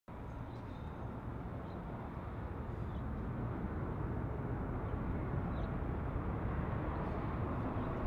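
Outdoor ambient noise: a steady low rumble that grows slightly louder, with a few faint high chirps.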